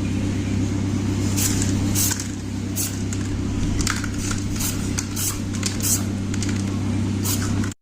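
Steady low motor hum, with short hissing spray bursts about every half second to second over it.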